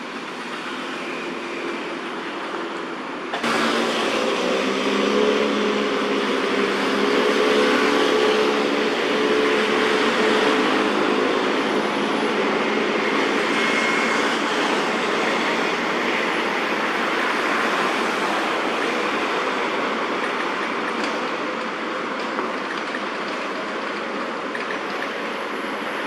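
Steady road traffic noise with a heavy vehicle's engine hum, which jumps louder about three seconds in, holds, and eases slightly near the end.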